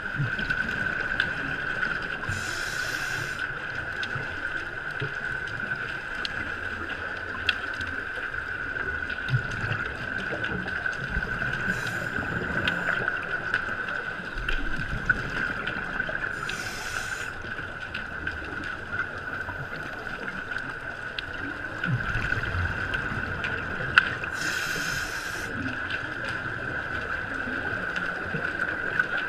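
Scuba regulator exhaust bubbles rushing up in three bursts of about a second, heard underwater over a steady high-pitched hum and low water rumble.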